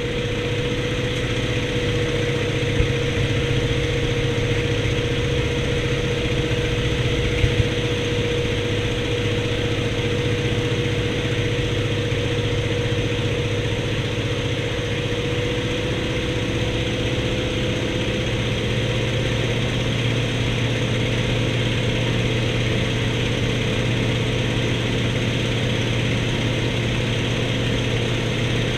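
Antonov An-2's nine-cylinder radial piston engine running with a steady drone, its pitch shifting slightly about two-thirds of the way through, with a couple of brief clicks near the start.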